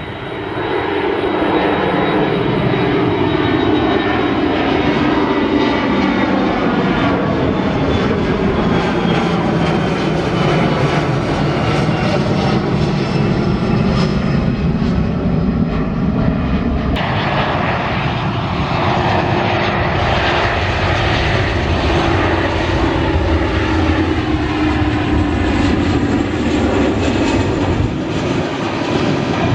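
Airliner engines running loudly as the aircraft passes, with tones that sweep slowly up and down in pitch. The sound changes abruptly about seventeen seconds in.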